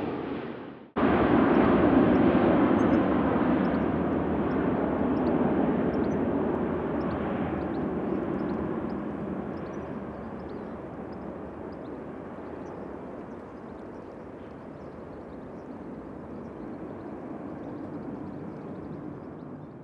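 Jet airliner engine noise that briefly fades to near silence at a cut about a second in, then starts loud and slowly dies away over the next fifteen seconds or so as the aircraft moves off.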